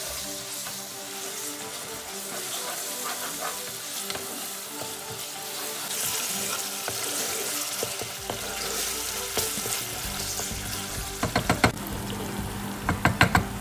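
Chopped onions frying and sizzling in hot oil in a nonstick pot, stirred with a wooden spatula. A quick run of sharp clicks comes near the end.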